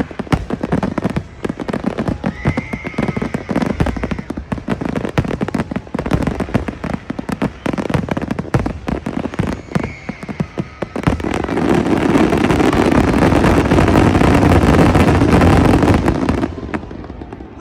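Fireworks going off in quick succession: many rapid cracks and bangs, with a faint whistle twice. About eleven seconds in, this builds into a continuous loud crackling barrage that stops shortly before the end.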